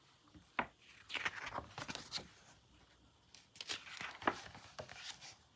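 Paper pages of a picture book being handled and turned: a sharp crinkle just after the start, then soft rustling and crinkling on and off.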